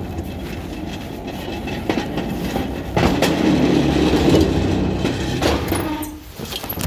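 Manual pallet jack pulled along, its wheels rolling and rattling with a steady clatter; it gets louder about three seconds in and eases off near the end.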